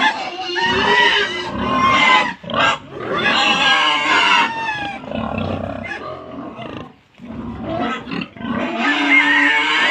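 Pigs squealing loudly in long, shrill squeals, dropping away briefly about seven seconds in.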